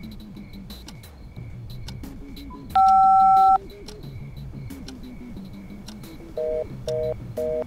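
Telephone sounds over background music with steady ticking: a single loud two-note keypad tone lasting under a second about three seconds in, then from about six seconds a busy signal, a two-note tone pulsing on and off about twice a second.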